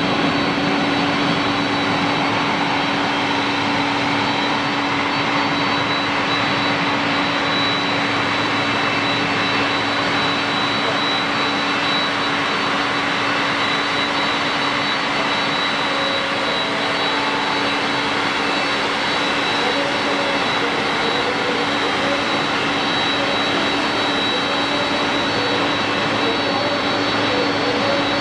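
Steady jet noise from a Japan Airlines Boeing 767-300 airliner, an even rush with a constant low hum and a thin high whine.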